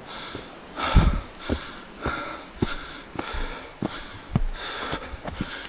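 A man breathing hard with short, noisy breaths as he climbs a steep trail, out of breath, with the regular knocks of his footsteps on the path.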